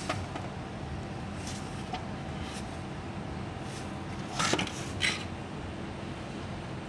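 Steady low background hum with a faint steady tone. A few faint handling noises, then two louder short knocks with a rustle, about half a second apart a little past the middle, as the removed plastic intake manifold is handled and turned over.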